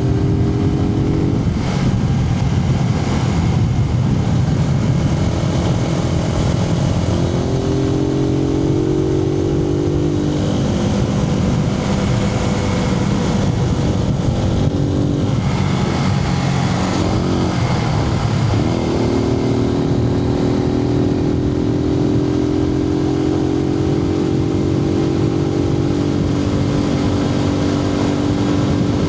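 Suzuki TU250X's air-cooled single-cylinder four-stroke engine running under way, heard from inside the rider's helmet over steady wind noise. The engine note steps and glides up and down several times as the rider shifts and changes speed, then holds a steady, slowly rising pitch through the last ten seconds as it pulls.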